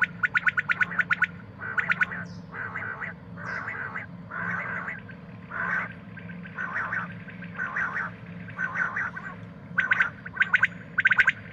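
Common quail calling: quick trains of sharp clicking notes, then a run of rougher, buzzier notes about every half second, with the quick clicking trains returning near the end.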